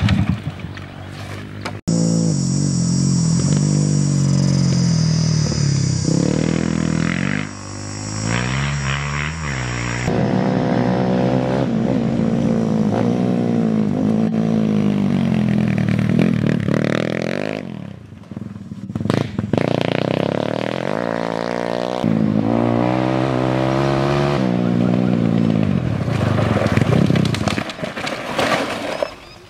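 Dirt bike engines revving up and down while being ridden, in several short clips joined by abrupt cuts.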